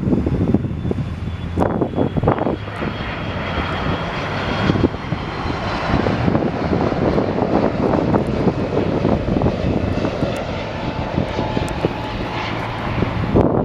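Airbus A330-300 airliner's twin GE CF6-80E1 turbofan engines as the jet arrives: a steady loud jet rush with a faint, slowly falling whine. Wind buffets the microphone throughout.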